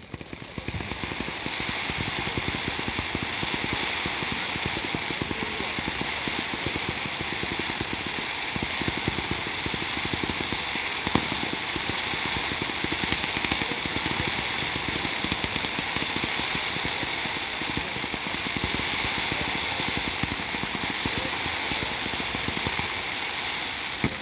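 Aerial fireworks going off in a dense, rapid barrage of crackles and pops, swelling in about the first second and then continuing unbroken.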